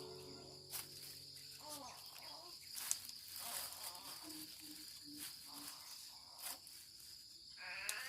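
Insects droning steadily at a high pitch in the background, with a few faint clicks and knocks.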